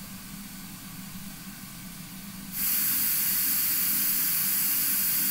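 Recorded white noise from a loudspeaker, picked up about 8 meters away: first a plain, fairly soft hiss, then about two and a half seconds in it cuts to the recording made through the parabolic dish microphone, much louder and brighter, with the high end strongly boosted.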